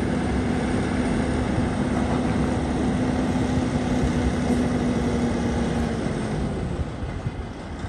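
Heavy diesel truck engine running under load as the semi tractor pulls the house away, with a steady drone that stops about six seconds in, after which the sound grows quieter.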